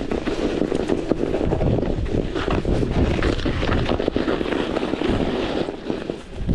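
Gravel bike tyres crunching and bumping over rough, footprint-pocked snow, a steady stream of crackles and knocks, with wind rumbling on the microphone underneath.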